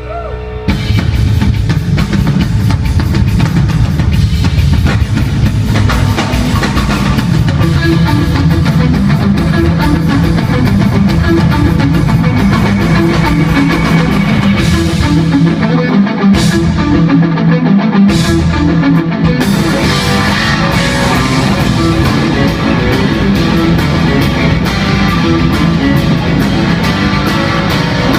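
Rock band playing live at full volume through an arena PA, with drum kit and electric guitar. The low end drops out for a couple of seconds about halfway, then the full band comes back in.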